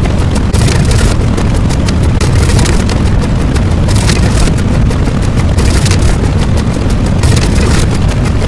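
Loud, continuous rumbling noise with a dense rapid crackle, like a distorted explosion or engine sound effect.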